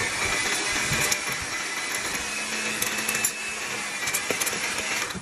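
Electric stand mixer with a single wire whisk running steadily at speed, beating cream cheese for icing in a stainless steel bowl. It cuts off at the very end.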